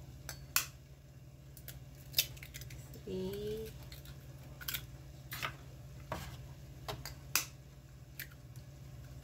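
Eggs being cracked into a stainless steel bowl: a series of sharp taps of eggshell against a fork and the steel bowl, with a low steady hum underneath.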